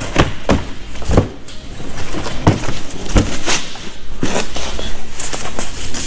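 Packaging being handled as a long cardboard box is unpacked: a thin plywood lid is pulled off and set down, and a foam sheet is slid and lifted, giving an irregular string of knocks, scrapes and rustles.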